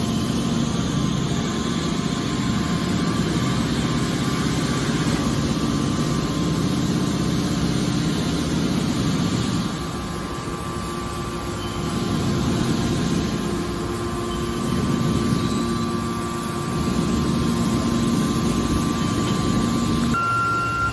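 Hydraulic metal baler running: a steady mechanical drone with a hum. It eases off about ten seconds in, swells again a few times, and its tone changes near the end.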